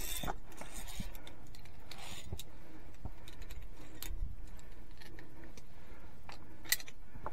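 Via ferrata carabiners clinking against the steel safety cable and scuffing on the rock as a climber moves along it: scattered light metallic clicks, with one sharp click near the end.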